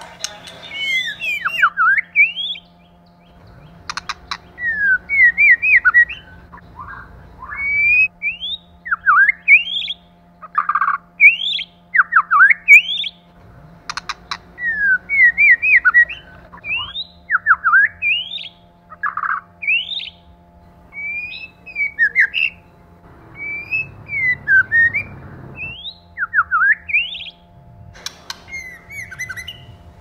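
White-rumped shama singing: a long run of short, clear whistled phrases, many built of quick rising notes, with brief pauses between phrases.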